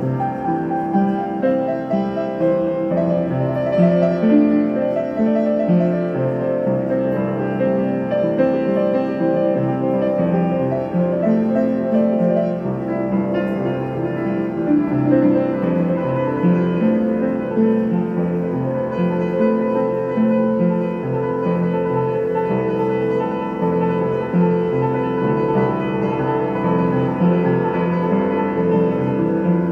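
Piano music: a continuous run of notes.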